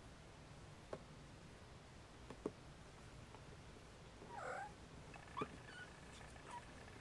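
Siamese mother cat and her nursing kittens purring, a low steady rumble, with a few soft clicks and a couple of short, faint kitten squeaks about four and five and a half seconds in.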